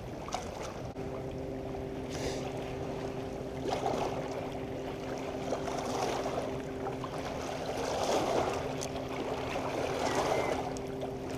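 Lakeside water moving and lapping at a dock, in gentle swells, under a steady motor hum that starts about a second in.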